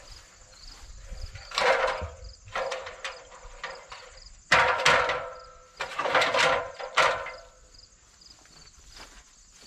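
Aluminum extension ladder being raised against a barn eave: four bouts of metallic clanking and rattling with a ringing tail, the loudest about halfway through, as the ladder's sections and rungs knock and it is set against the roof edge.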